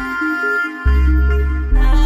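Instrumental background music: a melodic lead over a heavy bass line. The bass drops out for a moment near the start and then comes back.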